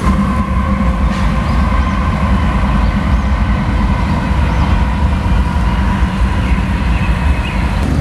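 A heavy vehicle passing, a loud low rumble with a steady faint whine, over the rush of the river in spring flood.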